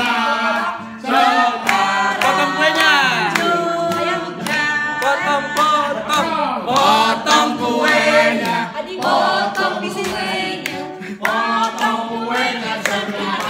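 A small group of people singing a birthday song together, unaccompanied.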